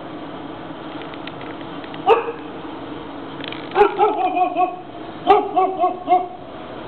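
Dog barking: a single bark about two seconds in, then two runs of quick, repeated barks.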